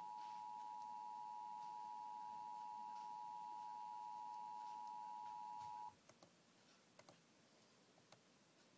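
Emergency Alert System attention signal: a steady two-note tone held without a break, cutting off suddenly about six seconds in, followed by a few faint clicks.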